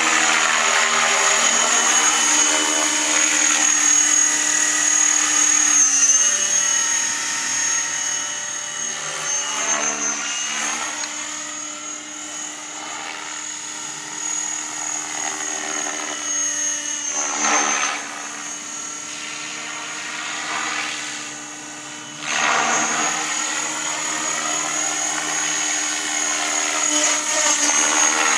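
Align T-Rex 550E electric RC helicopter flying aerobatics overhead: a steady high-pitched motor and gear whine over the whoosh of the rotor blades, the sound swelling and fading as it moves and flips, growing suddenly louder about three quarters of the way through.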